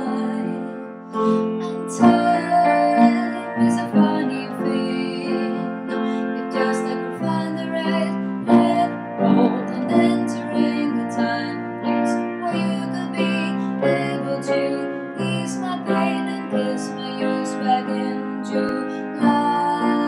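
Grand piano played in steady chords with a woman singing along.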